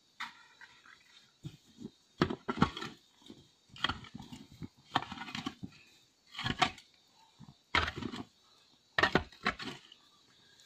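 Snow being scooped and scraped off a path: a series of irregular crunching scrapes, about eight or nine strokes spread unevenly through the stretch.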